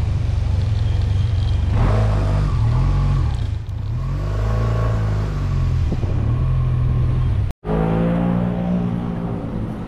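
Motorcycle engine running while riding, its pitch rising and falling with the throttle, over a steady rush of noise. The sound cuts out for an instant about three-quarters of the way through, then carries on.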